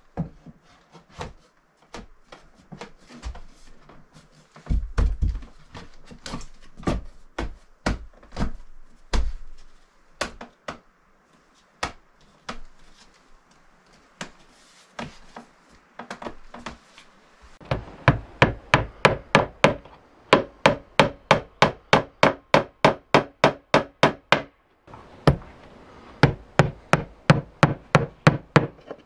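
Wooden trim boards knocking and clattering as they are handled and fitted into a window frame, followed about two-thirds of the way through by a claw hammer driving small nails into the wooden casing: quick, even strikes about three a second, with one short pause.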